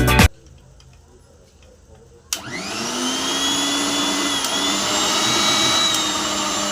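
Mixer grinder's motor switched on about two seconds in, spinning up quickly to a steady high whine and running on: a test run with a newly fitted armature.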